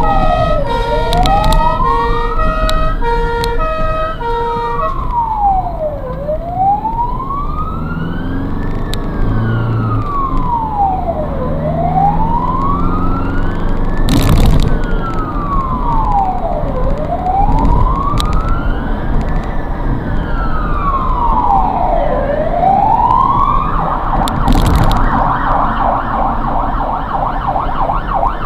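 Ambulance siren heard from inside the cab, a slow wail rising and falling about every five seconds. A stepped tone pattern sounds over it for the first few seconds, and near the end it switches to a fast yelp. Under it the engine revs up as the vehicle accelerates, and two brief sharp cracks come in the middle and near the end.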